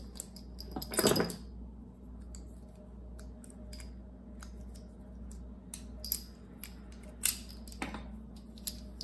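Brass 8mm Mauser cartridges on stripper clips clicking and clinking together as they are handled, in scattered light taps with louder clinks about a second in and a few near the end.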